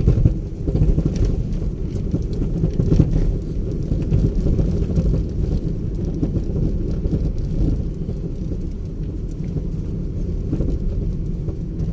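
Steady low rumble of a vehicle driving along a road, engine and road noise heard from inside the vehicle.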